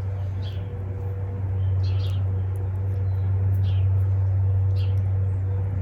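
Birds chirping in several short high calls over a steady low hum.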